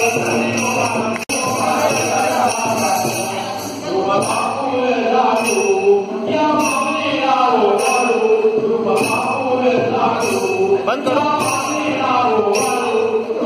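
Devotional music: a sung melody with long held notes over jingling bells that keep a steady beat.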